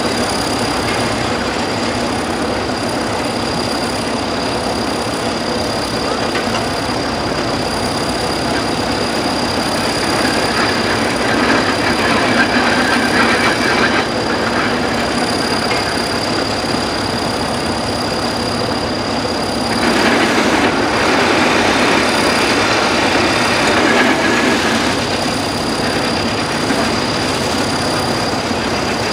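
Antique vertical-boiler steam shovel at work: a steady mechanical noise from its steam engine and gearing. It gets louder for a few seconds about eleven seconds in, and again from about twenty seconds in, as the shovel digs and swings to dump into a truck.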